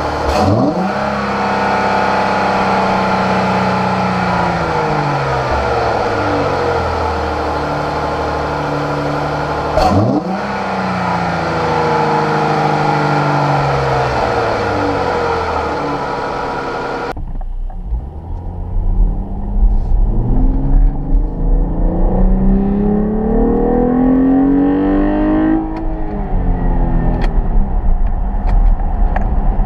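Dodge Durango's 3.6 Pentastar V6 engine revved twice, each time spiking quickly and then winding down slowly over several seconds. It then runs under acceleration with a deep rumble, the revs climbing steadily, dropping briefly near the end and climbing again.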